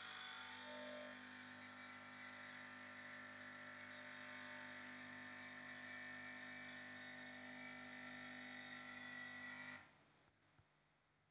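A steady machine hum made of several fixed tones, which cuts off suddenly near the end and leaves near silence.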